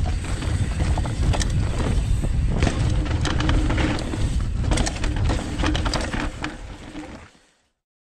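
Mountain bike being ridden over a dirt trail: a heavy rumble from the tyres and wind, with rattles, clicks and sharp knocks from the bike over the bumps. The sound fades out about seven seconds in.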